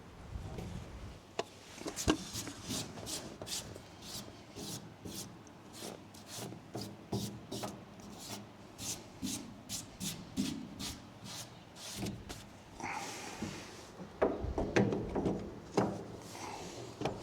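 Hand work fitting a boat's roof hatch: a long run of evenly spaced clicks, about two or three a second, then some rubbing and scraping and a few louder knocks near the end.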